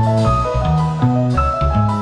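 Background music: a mallet-percussion melody over bass and a drum beat.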